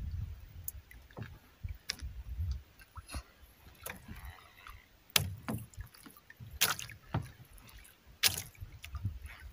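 Small boat at sea: irregular sharp knocks and clicks, about one every second or two, over a low rumble of camera handling and water sloshing against the hull.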